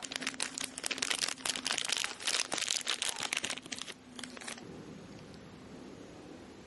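Thin clear plastic bag crinkling and rustling in the hands as a small toy figure is pulled out of it. The crinkling stops after about four and a half seconds.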